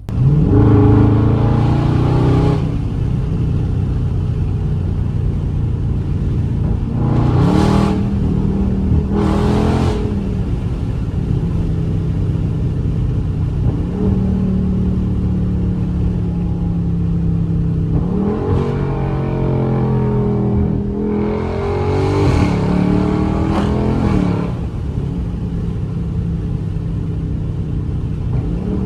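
Dodge Scat Pack's 392 HEMI V8 under hard acceleration as the car is driven. It revs up sharply at the start, holds a steady drone, then revs in short bursts about eight and ten seconds in and again around twenty seconds in before settling back to steady running.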